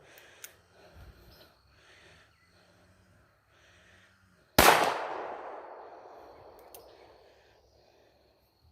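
A single handgun shot about halfway through, sharp and loud, its echo fading away over about three seconds.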